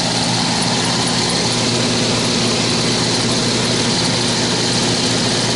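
Heat pump air handler's blower motor and squirrel-cage fan running steadily: a constant hum over a rush of air. The motor is noisy and vibrating, typical of worn motor bushings.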